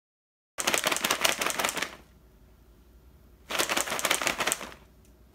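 Bag of Temptations cat treats shaken, the hard treats rattling inside the pouch in two bursts of rapid clicking, each about a second and a half long, with a pause between. It is the shake used to call cats to their treats.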